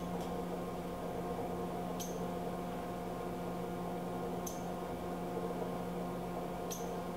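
Mitsubishi RB23 CNC cylindrical grinder running with a steady electrical hum while its gauging probe slides up and down. Three short, sharp clicks come about two seconds apart.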